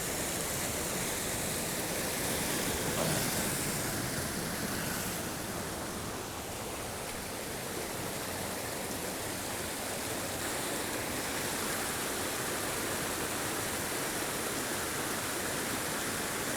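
Swollen mountain creek rushing, a steady, even wash of water noise.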